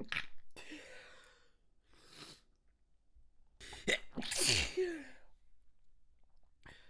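Stifled sneezes, triggered by tickling the nose. One ends right at the start, and a breath is drawn in about two seconds in. A second held-in sneeze comes about four seconds in: a sharp catch, then a loud, noisy burst with a voice that falls in pitch. A quick breath follows near the end.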